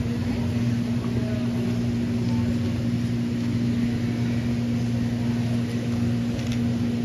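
Steady low hum, with faint background noise.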